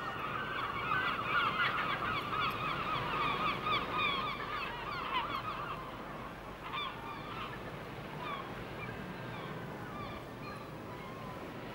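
A flock of birds calling: many short, overlapping calls, dense at first and thinning out after about six seconds.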